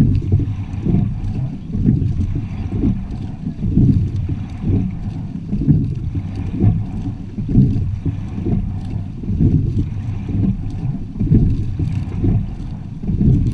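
Water rushing along the hull of a quad sculling boat under way, heard as a low, uneven rumble, with wind buffeting the bow-mounted camera's microphone.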